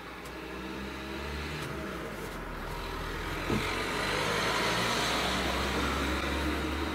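A motor vehicle passing by: a low engine rumble and road noise that swell gradually, peak about two-thirds of the way through, then begin to fade. A short tick about halfway through.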